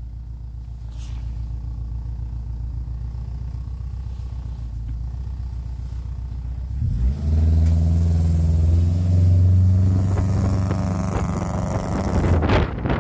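Honda CR-V engine running steadily at low revs, then revving up about seven seconds in and holding higher revs under load for around five seconds while driving through deep snow, before easing off near the end.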